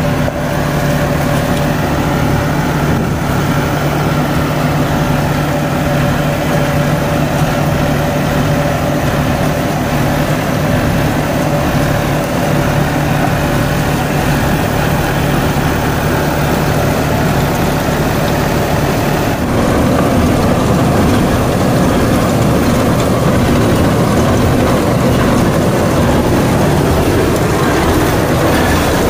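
Deutz-Fahr Agrolux 80 tractor engine running steadily under load while driving a rotavator through banana-field trash and soil. About twenty seconds in, the sound grows louder and rougher, with more churning noise.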